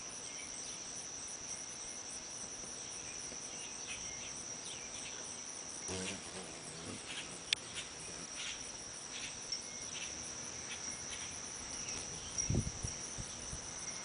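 Steady high-pitched insect trill, cricket-like, running throughout, with a few faint ticks in the middle and a low thump near the end.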